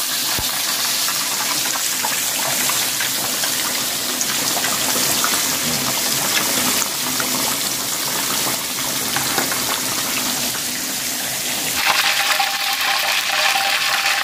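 A whole giant gourami deep-frying in hot oil in an aluminium wok: a steady sizzling, bubbling hiss. Near the end the sizzle turns brighter and hissier.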